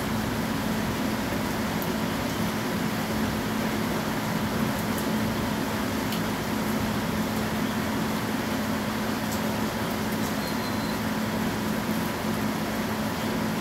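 Steady rain noise with a constant low hum running under it.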